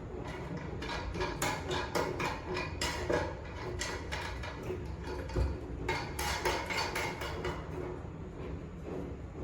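Small metal hardware, washers and a nut on a bolt, clicking and clinking in two clusters of quick taps as it is fitted and hand-tightened, over a steady low hum.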